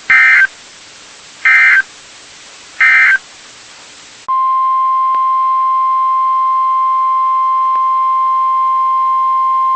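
NOAA Weather Radio Emergency Alert System alert: three short bursts of SAME header data, each about half a second, then a steady, loud warning alarm tone that starts about four seconds in. The tone signals that a warning message is about to be read.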